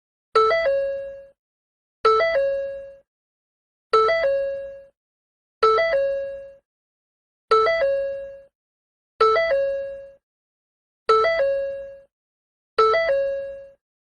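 Ford door-open warning chime: a short quick figure of notes that rings and fades within about a second, repeating about every 1.8 seconds, eight times.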